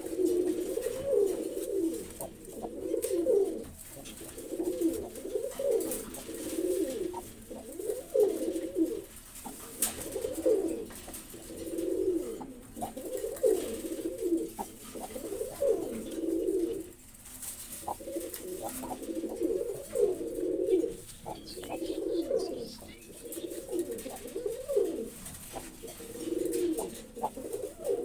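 Blue-bar Hungarian High Flyer pigeons cooing, one rolling coo after another every second or two.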